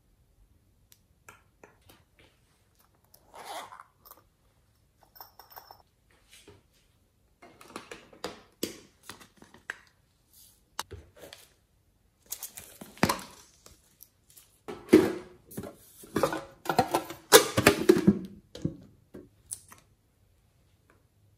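Fingers pressing and poking into slime covered in foam beads and sprinkles, giving scattered sticky crackles and clicks that come thicker and louder in the second half.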